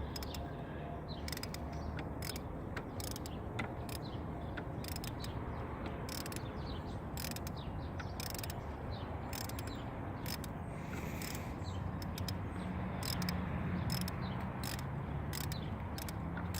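Socket ratchet clicking in irregular runs as a bolt on a car's power steering pump is worked, over a steady low hum.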